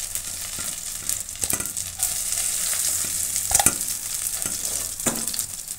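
Fried silver carp steaks sizzling in hot oil in a non-stick wok, with a few knocks and scrapes of a spatula against the pan as the fried pieces are lifted out.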